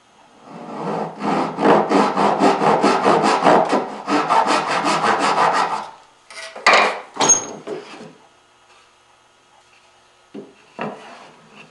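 A hand backsaw cutting through curly maple, fast even strokes at about five a second for roughly six seconds, then stopping. A few sharp wooden knocks and clunks follow as the saw and board are handled.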